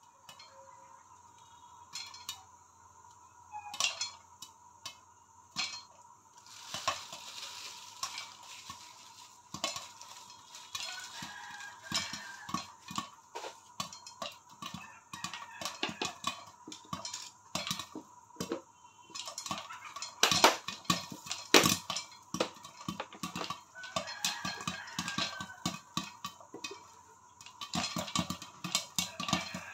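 Popcorn popping in a covered pan with a glass lid: sharp, irregular pops and ticks as kernels burst and hit the lid. They start sparse, come thick and fast from about seven seconds in, and are loudest about twenty seconds in.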